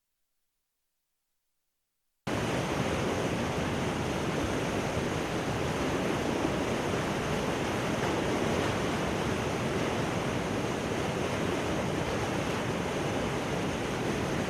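Floodwater rushing through a river dam's open gates: a steady, loud rush of water that starts suddenly about two seconds in.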